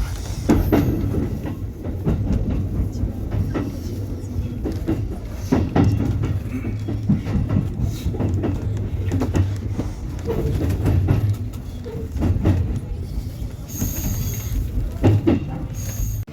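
Electric train running on the rails: a steady low rumble with irregular clacks from the wheels over rail joints and points, and two brief high squeals near the end.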